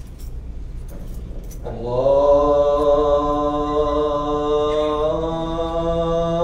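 A man's voice chanting in the drawn-out style of Islamic recitation, coming in about two seconds in with one long held note that steps to a new pitch about five seconds in. Before it, a low steady room hum.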